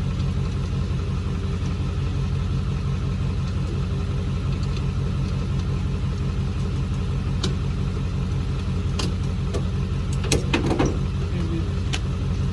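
Car engine running steadily with an even low hum. A few sharp clicks and knocks come about nine to eleven seconds in.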